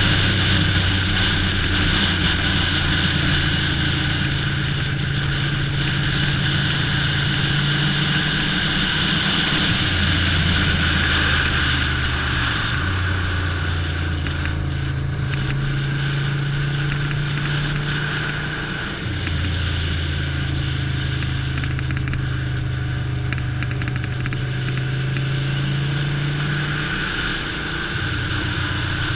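1988 Ducati Paso 750's air-cooled V-twin running at a moderate cruise, heard from the saddle with wind rush on a helmet camera. The engine note steps down and back up several times as the throttle and gears change, with a brief dip in loudness about nineteen seconds in.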